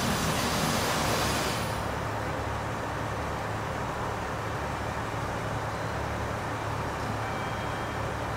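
A diesel limited-express railcar standing at the platform, its engines idling in a steady low hum. A burst of hissing air in the first couple of seconds as it comes to rest, then only the idle.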